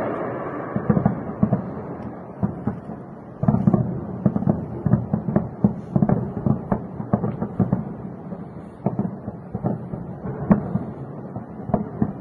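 A rapid, irregular crackle of distant bangs and booms, several a second, from an air strike on a city at night. The rumble of a large blast dies away at the start, and a fresh burst of louder bangs breaks out about three and a half seconds in.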